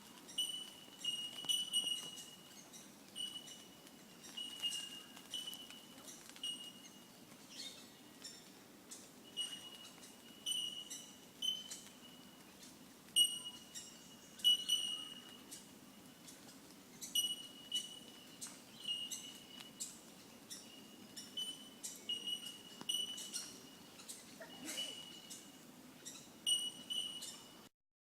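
Bell miners (Australian bellbirds) calling: short, high, single-pitched 'tink' notes repeated over and over, many in quick succession.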